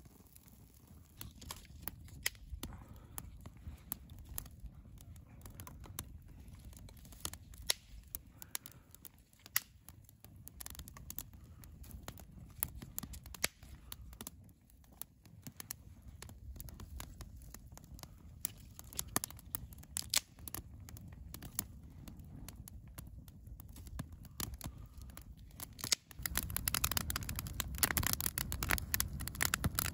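Wood fire of dry twigs and sticks crackling, with irregular sharp snaps and pops over a low rumble of flame. About 26 seconds in it gets louder and the snaps come much thicker as the fire burns up.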